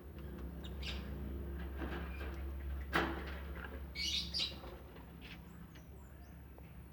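Lovebirds chirping, a cluster of short high calls about four seconds in and a few more later. A sharp click about three seconds in, over a low steady hum.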